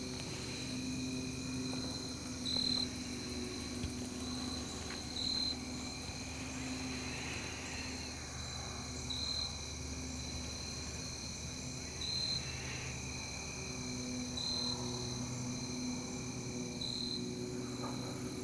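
Steady chorus of crickets: a continuous high trill with a louder short chirp repeating about every two to three seconds.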